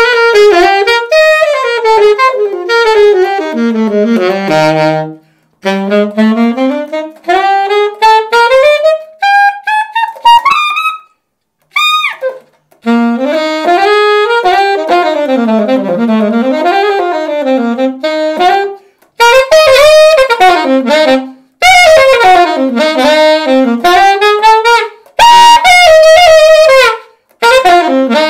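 Yamaha YAS-275 alto saxophone fitted with a Claude Lakey mouthpiece, played solo: a slow melody with vibrato in phrases separated by short breaks, with a quick rising run about ten seconds in.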